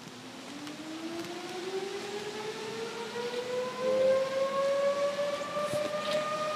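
Outdoor warning siren winding up: one tone climbs slowly in pitch over about four seconds, then holds steady and grows louder.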